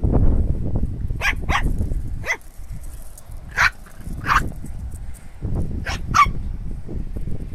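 Yorkshire terrier yapping: about seven short, high-pitched yaps in scattered pairs, over a steady low rumble.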